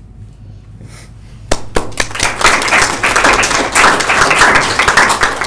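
Audience applauding: a few scattered claps about a second and a half in, quickly building into dense applause.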